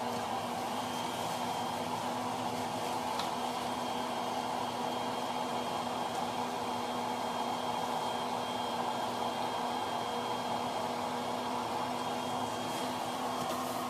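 Built-in blower fan of a Gemmy airblown inflatable running steadily and inflating the figure. It makes an even whirring with a low hum and a faint high whine.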